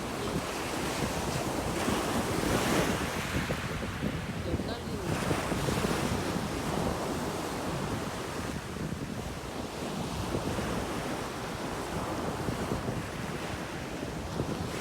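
Sea waves washing on the shore, swelling and easing, with wind rumbling on the microphone.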